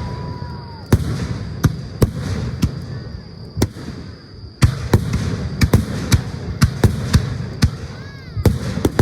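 Aerial fireworks going off: a rapid series of sharp shell bursts, about one or two a second, with crackling between them and a few short whistling glides, over a steady high-pitched tone.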